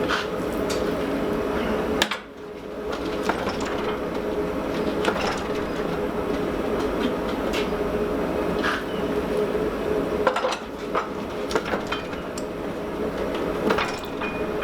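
Scattered metal clinks and knocks from forging work on a steel blank, a dozen or so at uneven intervals, over a constant shop roar with a steady hum.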